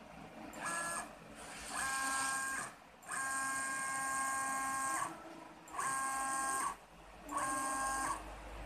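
Stepper motors of a High-Z S400 CNC router and its DIY rotary axes, jogged in five separate moves. Each move gives a steady multi-tone whine that starts and stops abruptly, the longest about two seconds, in the middle.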